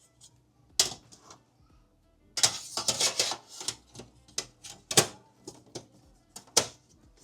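Sharp clicks and clattering of small hard objects being handled, in a quick cluster about two and a half seconds in and a few single knocks later.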